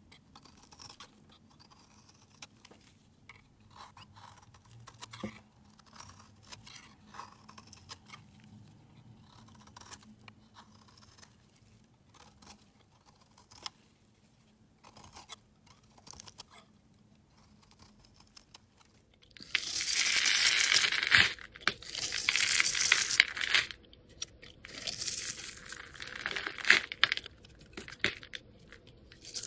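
A utility knife blade shaves thin flakes off a dry bar of white soap in light, quiet scraping strokes. About two-thirds of the way through, this gives way to much louder, dense, crackly scraping and crumbling as a dry black soap bar is shaved into chips.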